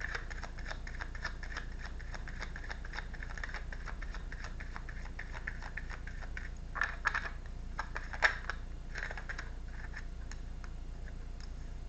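A tarot deck being shuffled by hand: a fast, dense run of card clicks for about six seconds, then a few separate louder snaps of cards.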